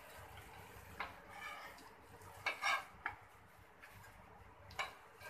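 Metal spatula scraping and clinking against a shallow frying pan (tawa) as shallow-fried cutlets are lifted out of the oil: a few separate scrapes and clinks, the loudest about two and a half seconds in.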